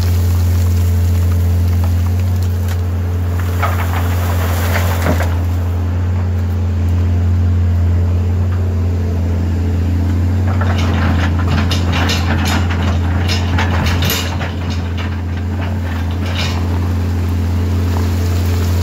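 Caterpillar 320CL excavator's 3306 diesel engine running with a steady low drone while it loads rock into a truck. Rocks clatter and rattle in a short burst about three seconds in, and again in a longer burst from about eleven to sixteen seconds in.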